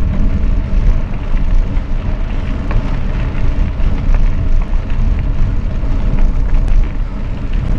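Continuous ride noise from a mountain bike rolling gently uphill on a forest track: a loud, fluctuating low rumble of wind and tyre noise on the on-bike camera's microphone, with a few faint clicks.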